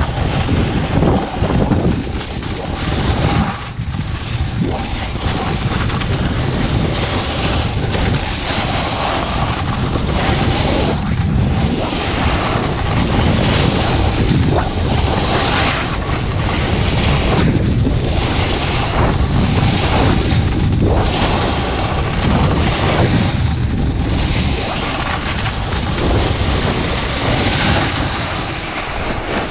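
Loud wind rushing over the action camera's microphone during a fast slide down a ski slope, swelling and easing every second or two.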